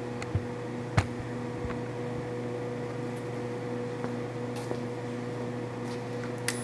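Victor electronic variable-speed milling machine humming steadily, with a few sharp clicks and knocks about half a second, one second, four and a half seconds and six and a half seconds in.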